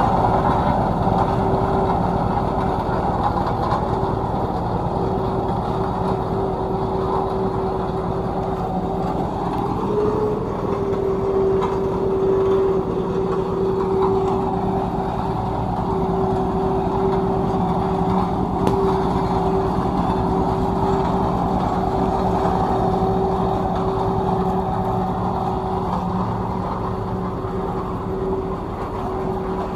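Tandem road roller's engine running steadily under a steady humming tone, with a brief rise in pitch about ten seconds in.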